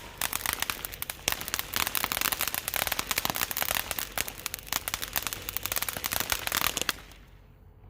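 A consumer ground firework, lit again after seeming to die out, crackling rapidly and continuously. It fades out about seven seconds in.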